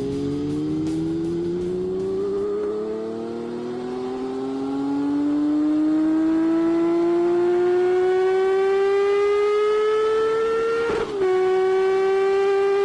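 Honda CBX's 1047 cc air-cooled inline-six engine under way, its pitch rising steadily as the bike accelerates in gear. About eleven seconds in, the note drops briefly at a gear change, then starts climbing again.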